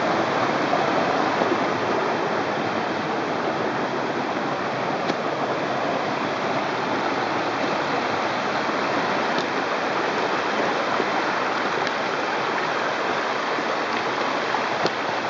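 Shallow stream rushing and splashing over a rocky bed, a steady, even sound of running water.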